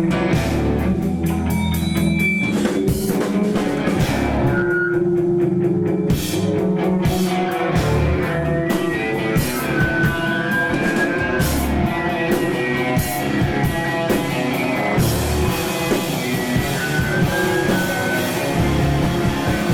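Live rock band playing, with guitar and a drum kit at a steady loud level.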